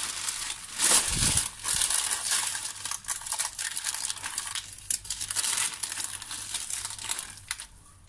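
Baking parchment crinkling and rustling as a sheet of sponge cake is turned over and handled on it, with a dull thump about a second in; the rustling thins out near the end.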